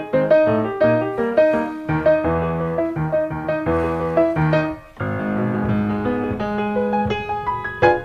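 Background piano music: a steady run of notes, with a new phrase over a long low note starting about five seconds in.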